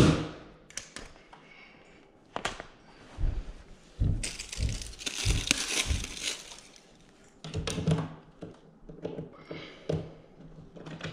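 A cordless driver's short last burst as the new receptacle is screwed into its wall box, then crinkling and rustling with scattered clicks and knocks as parts are handled and a plastic cover plate is set over the outlet.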